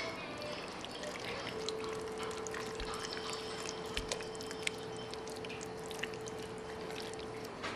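Wooden spoon stirring thick chili of ground beef and chopped vegetables in a pot: a continuous stirring noise with many small clicks and taps. A faint steady hum sets in after about a second and a half.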